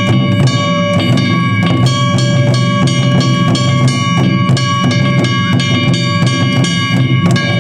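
Drum-led music: rapid, closely spaced drum strikes with several sustained ringing tones held over them.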